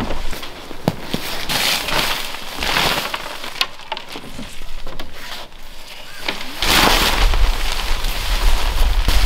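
Nylon tent fabric and groundsheet rustling and flapping as they are unfolded and shaken out, with a few sharp clicks. About two thirds of the way in, a low rumble of wind on the microphone joins the louder flapping.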